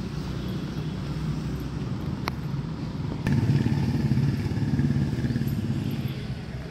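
An engine running with a low rumble that gets louder about three seconds in and eases off near the end, with one sharp click partway through.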